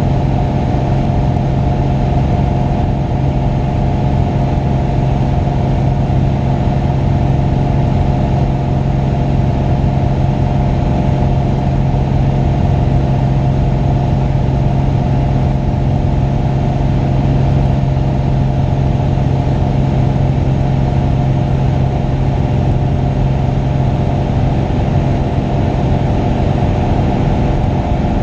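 Light single-engine aircraft's engine and propeller running at a steady cruise, an even, unchanging drone heard from a camera mounted outside the airframe.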